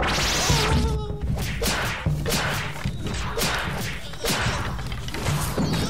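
Music with a steady low bass: a loud noisy burst at the start, then a run of sharp noisy hits, about three a second.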